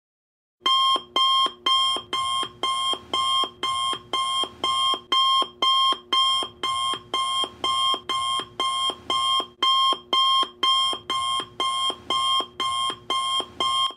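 Electronic alarm beeping, a steady run of short beeps at about two a second, starting about half a second in.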